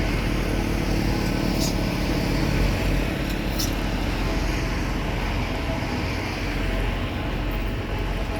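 Road roller running steadily while compacting hardcore.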